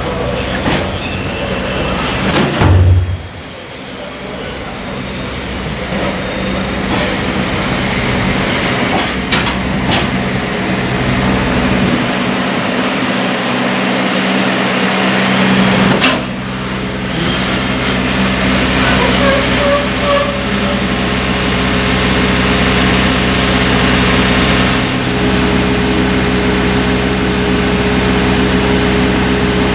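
Container wagons of a JR Freight train rolling slowly along a station platform and braking to a stop, with wheel and brake squeal over a steady hum, and a heavy thump about three seconds in. Near the end a steady tone comes in as a JR Central 313-series electric train approaches.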